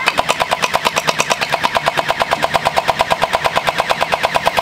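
Battery-powered Nerf Pro Gelfire x MrBeast gel ball blaster firing on full auto: a steady rapid rattle of about nine shots a second, without a break.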